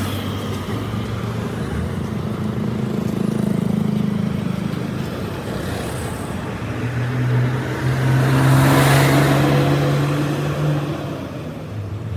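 A motor or engine running with a steady low hum that shifts pitch a few times. A rushing noise swells and fades about two-thirds of the way through.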